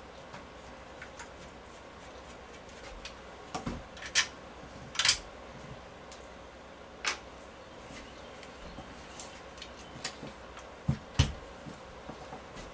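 Scattered light metallic clicks and clinks from a screwdriver and small steel screws and parts being handled and set down on a workbench while the lower-tang screws are taken out of a Marlin lever-action rifle. The sharpest clicks come about four and five seconds in, with a couple of duller knocks near the end as the rifle is shifted on the bench, over a faint steady hum.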